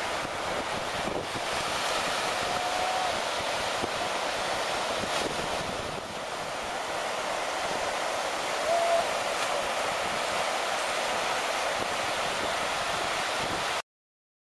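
Surf breaking and washing up a sandy beach, with wind buffeting the microphone. A short high call sounds twice, about two and a half seconds in and again near nine seconds. The sound cuts off abruptly near the end.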